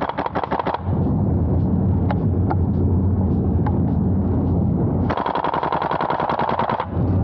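Tokyo Marui AKM gas-blowback airsoft rifle firing on full auto, a rapid even string of shots at about ten a second. One burst ends just under a second in and a second burst of about two seconds starts near five seconds in, with a steady low noise in between.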